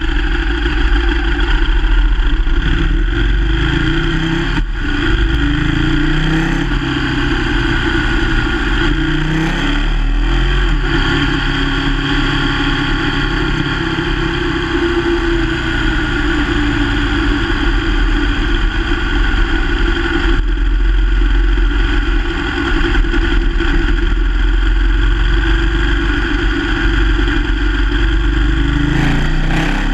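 Onboard sound of a sport motorcycle ridden hard on a race track. Its engine is under load, with the pitch repeatedly rising and stepping down as it accelerates and shifts gear, over a steady rush of wind on the camera.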